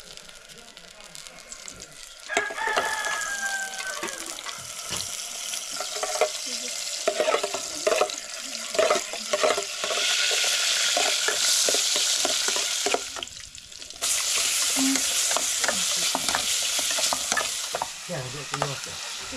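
Food sizzling as it fries in a pan, with short clinks and scrapes of stirring. The sizzle grows louder about ten seconds in, drops away for about a second, then returns.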